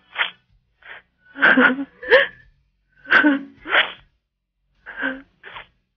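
A woman crying over a phone line: a series of short, broken sobbing breaths and whimpers between halting speech.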